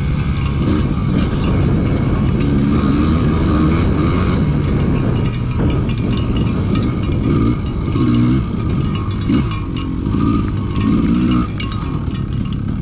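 Dirt bike engine heard from on the bike, revving up and down as the throttle is worked along a dirt track, with the throttle shut briefly a few times. It eases off and runs lower near the end as the bike slows.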